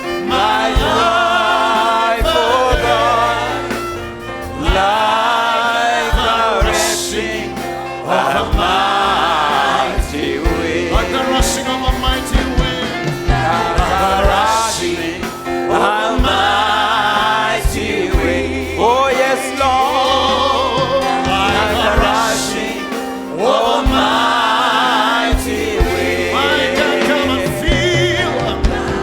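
Gospel worship singing by a congregation with a band: voices in long phrases over steady held chords, with regular drum hits.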